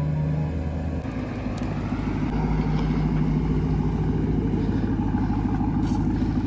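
Hennessey Mammoth 1000 Ram TRX's supercharged 6.2-litre V8 running as the truck drives by at trail speed. The engine note is deep and steady.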